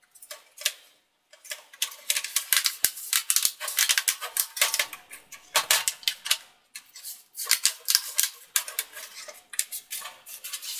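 Rapid small plastic clicks, snaps and taps as a ThinkPad T540p's plastic palmrest is handled and pressed into place on the laptop chassis, its clips snapping in. The clicking comes in quick irregular runs, with a short pause about a second in.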